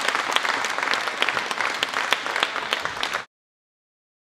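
Spectators in the stands applauding, a dense patter of hand claps that cuts off suddenly a little over three seconds in.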